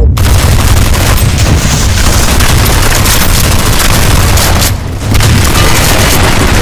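Dense gunfire sound effects: many guns firing rapid shots that overlap, over a heavy low boom. There is a brief break in the firing about five seconds in.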